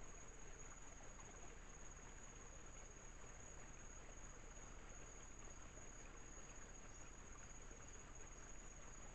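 Faint night ambience picked up by a trail camera's microphone: a steady, high insect trill over a low, even hiss, with no distinct events.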